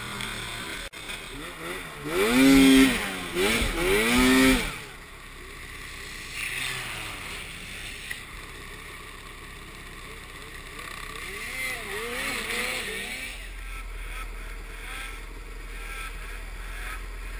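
Snowmobile engines revving, the pitch rising and falling repeatedly in a loud burst from about two to five seconds in, with a fainter round of revving a few seconds before the end.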